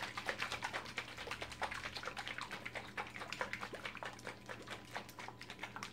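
Homemade salad dressing sloshing in a plastic salad-shaker cup with a dressing insert and snap-on lid, shaken hard by hand: a quick, even run of knocks and splashes, several a second.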